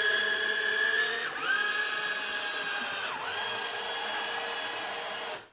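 REX robotic exoskeleton's electric leg motors whining as they raise the wearer from sitting to standing. The whine runs in three stretches, dipping in pitch about a second in and again about three seconds in, and stops abruptly near the end.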